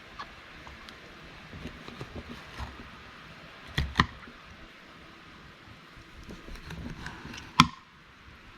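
Knocks and clicks from a knife and fish being handled on a work surface during fish cleaning: scattered light clicks, a sharp double knock about four seconds in, and a louder single knock near the end.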